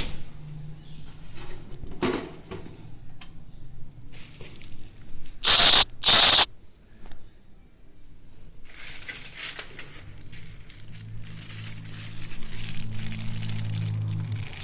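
Packaging being handled: crinkling and rustling, with two loud sharp rustles close together about five and a half seconds in, then steady rustling.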